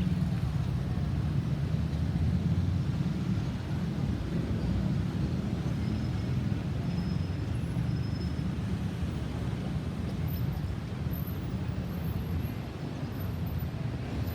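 Steady low rumble of road vehicles with no siren, easing slightly about four seconds in and again near the end.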